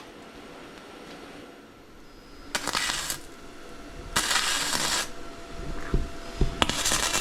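Welding arc crackling and sizzling in three short bursts, like tack welds being laid on the kart's frame.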